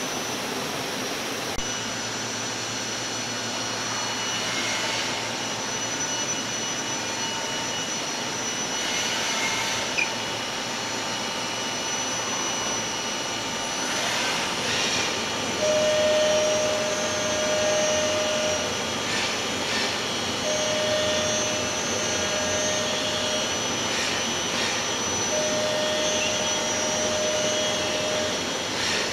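Hermle C42 five-axis CNC machining center running in a machine shop: a steady mechanical whir with a constant high whine, hissing swells about every five seconds, and from about halfway through a mid-pitched tone that switches on and off in stretches of two to three seconds.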